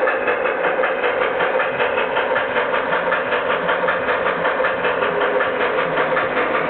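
G-scale model train running past on the garden track: a fast, even rhythmic clatter of about six beats a second over a steady hum.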